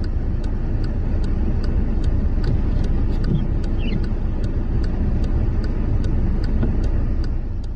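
Steady low rumble of a road vehicle, with a faint, regular ticking about two or three times a second over it.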